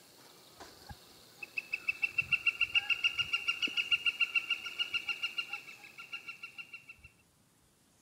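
Northern flicker giving its long call: a rapid, even series of same-pitched 'wick' notes, about seven a second. It starts about a second and a half in, swells, then fades out over several seconds.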